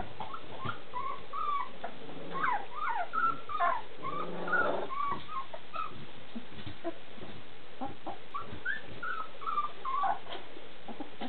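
A litter of three-week-old golden retriever puppies whimpering and squeaking: many short, high whines, some sliding up or down in pitch, overlapping each other and busiest a couple of seconds in.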